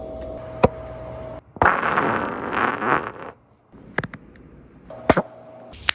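Fart sound effect: one long, noisy fart lasting about a second and a half, with a few sharp clicks before and after it.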